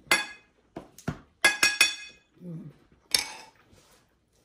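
Metal cutlery clinking against plates and bowls during a meal: a sharp ringing clink near the start, a quick run of three around a second and a half in, and another about three seconds in.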